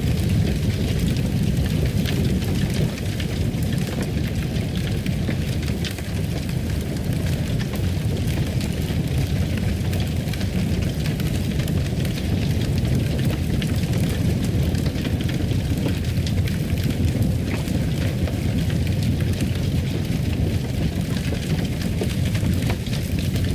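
Wood fire in a fireplace crackling, with scattered sharp pops over a steady low roar.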